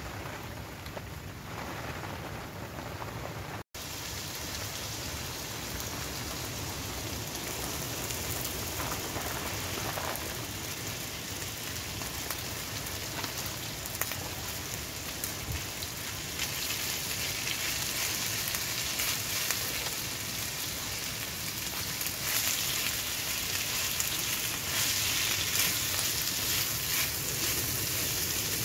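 Chicken and rice sizzling in oil in a steel pan over a wood-burning stove: a steady frying hiss with small crackles, growing brighter about halfway through, with a momentary break about four seconds in.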